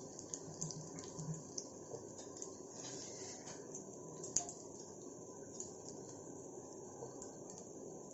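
Onion pakoras deep-frying in hot oil: a steady sizzle dotted with many small crackles and pops, with one sharper click about four seconds in.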